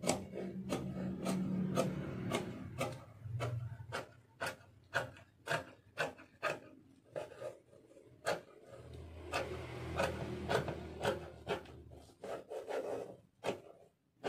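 Scissors snipping through lace fabric in a steady run of short, crisp cuts, about two or three a second.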